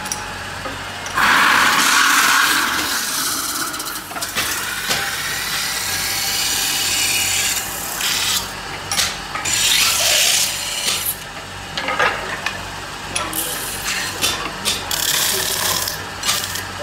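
A hand tool scraping against a metal pan spinning on a lathe, in uneven hissing surges over a steady motor hum.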